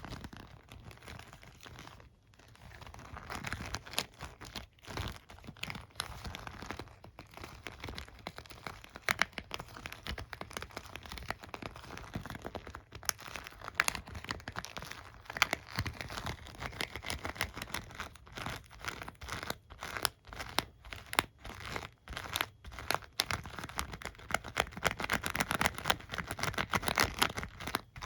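Fingers rubbing and tapping a hairbrush and comb: a continuous crackly scratching of bristles and teeth, broken by many sharp clicks.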